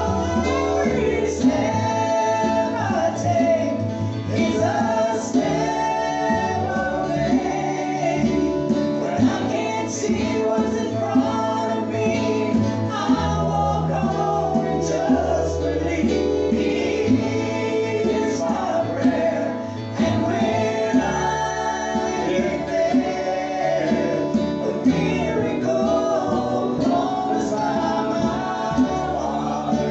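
A gospel group singing a song live, several voices including women's in harmony, with guitar accompaniment and a low bass line that shifts every few seconds.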